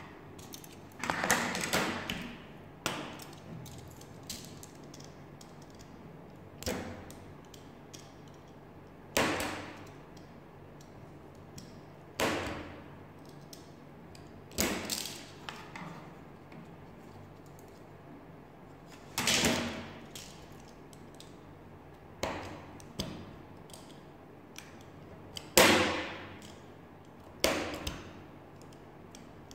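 Sharp wooden clicks and knocks at irregular intervals, about a dozen in all: laser-cut plywood parts of a UGEARS Wolf-01 model pistol kit being pressed out of their sheet and snapped together.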